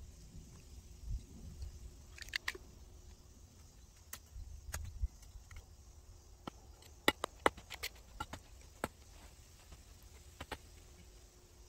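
Scattered light clicks and taps from hand-planting onion seedlings through black plastic mulch, as a small hand tool works the soil and the plastic seedling tray and mulch are handled. A quick cluster of sharper clicks comes about seven to eight seconds in.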